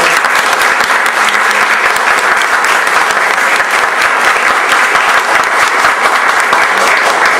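Audience applauding, a dense, steady round of clapping from many hands.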